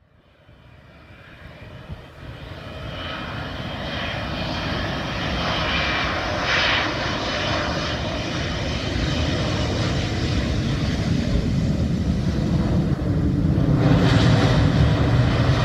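KLM Boeing 777 twin-jet landing, its engine noise fading in and building steadily as it comes in. About fourteen seconds in, a louder rumble and hiss as the main wheels touch down on the wet runway, throwing up spray.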